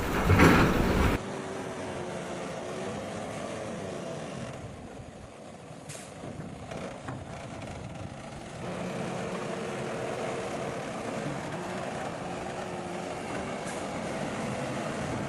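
Heavy road-construction machinery engines running steadily with a faint droning tone. A louder, rougher machine noise cuts off abruptly about a second in.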